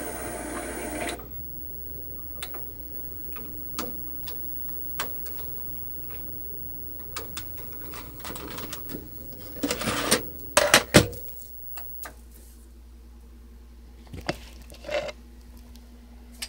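Toshiba MV13N2W TV/VCR combo's own sound cuts off about a second in. Then its VHS tape mechanism clicks and whirs, with a louder cluster of clunks about ten seconds in and a faint steady hum underneath.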